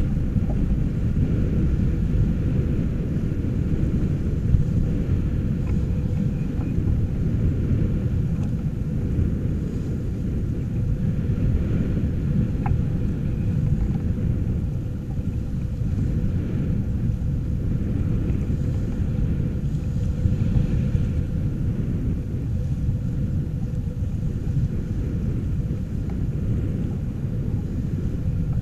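Wind buffeting the microphone aboard a sailing yacht under way, with water rushing along the hull, heard as a steady low rumble with a faint steady hum.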